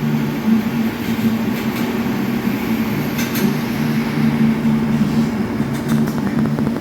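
TIG welding arc running with a steady buzzing hum and hiss, a lower buzz coming and going, and a few faint crackles.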